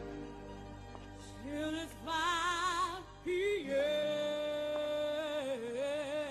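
A song: a voice sings long held notes with vibrato over instrumental backing.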